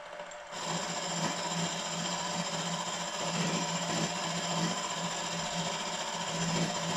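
Bench milling machine running, its milling cutter taking a cut across the top of a cast-iron cylinder block to flatten it. The cutting noise comes in about half a second in over the motor's steady hum, then holds steady.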